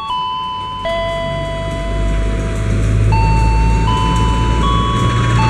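Station chime melody over loudspeakers, a slow tune of single held notes changing about every three-quarters of a second. Under it, the low rumble of an arriving diesel locomotive's engine builds from about a second in.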